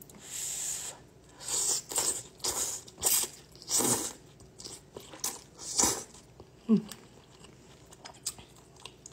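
Thick udon noodles slurped from a bowl of soup: a run of about seven loud sucking slurps over the first six seconds, then quieter chewing.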